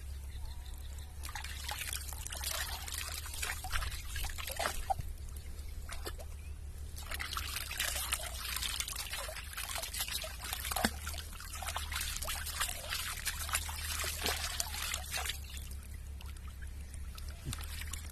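Water trickling and splashing in an irregular run of small splashes and drips as a rooster is dipped and wetted in water, with a brief lull about six seconds in.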